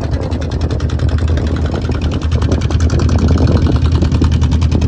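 Motorboat engine running steadily, a low hum with a rapid, even chugging.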